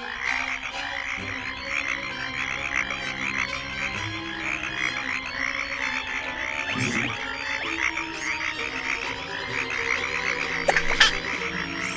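A chorus of frogs croaking in a rapid, continuous chatter, with soft sustained music underneath.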